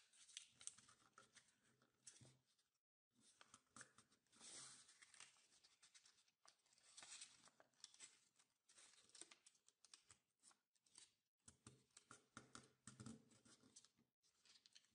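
Faint rustling and crinkling of origami paper being folded and creased by hand, in short, irregular scratchy strokes.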